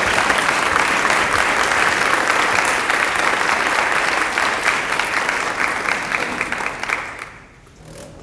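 Audience applauding: dense clapping that dies away about seven seconds in.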